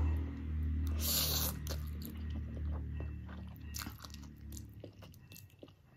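Close-miked eating of spicy Korean instant noodles: slurping and chewing with small wet mouth clicks, over a low steady hum. There is a louder slurping burst about a second in, and the eating sounds grow fainter toward the end.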